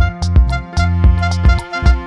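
Background music: an instrumental track with a steady, heavy low beat and sustained melodic tones.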